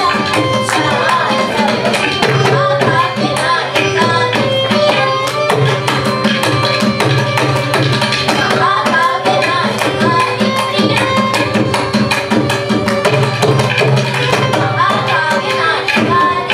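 Carnatic music: mridangam and ghatam playing dense, rapid strokes under a melody from violin and two young singers.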